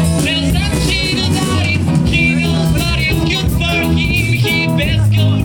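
Rock band playing a song, with a singing voice over bass, guitar and a steady drum beat.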